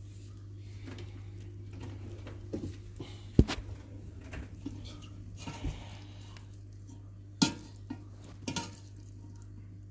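Cat eating cooked chicken from a stainless steel bowl, with soft handling of the meat and a few sharp clinks against the bowl. The loudest clink comes about three and a half seconds in, and two more come near the end.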